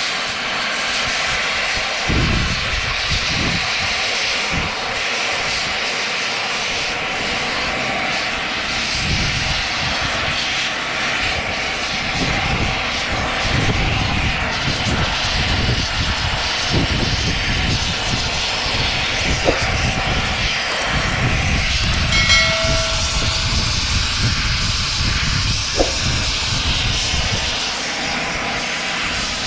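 Oxy-fuel cutting torch burning with its flame against a steel truck-frame plate: a steady rushing noise.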